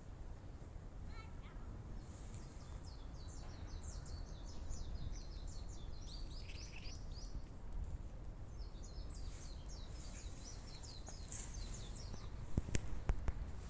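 A small bird singing two runs of rapid, short, falling high notes over a steady low outdoor rumble, with a few sharp clicks near the end.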